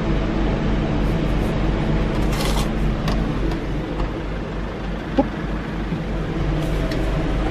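Steady low mechanical hum, with a few light clinks and taps from the sundae-making.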